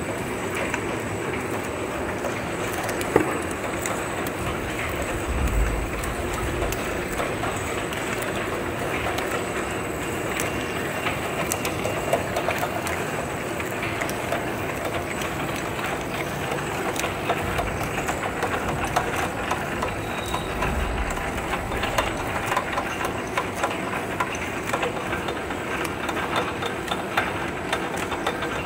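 Automatic bouillon cube pressing and paper-wrapping machine running, a steady mechanical clatter of many rapid small clicks, with a faint steady high whine over it.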